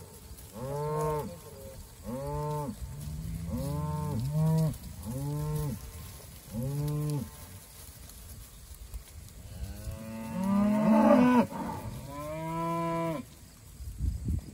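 Cattle mooing repeatedly: five similar calls about every second and a half, then a pause, then a louder call that rises in pitch and one more after it.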